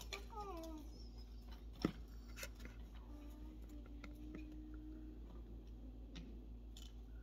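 A hungry stomach growling: a faint squeaky gurgle that falls in pitch near the start, then a longer, steady growl around the middle. A single sharp click just under two seconds in is the loudest moment.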